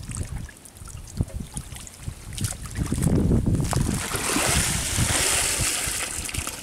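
Shallow muddy water sloshing and splashing as a round bamboo basket is dipped and lifted, with scattered soft knocks at first. From about four seconds in, a steady rush of water pouring out through the basket's weave.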